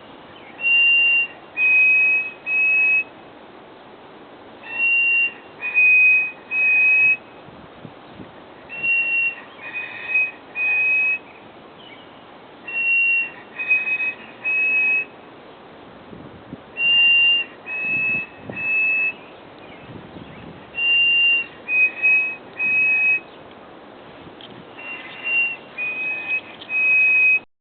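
A songbird singing a phrase of three clear whistled notes, the first slightly higher than the two that follow, repeated about every four seconds.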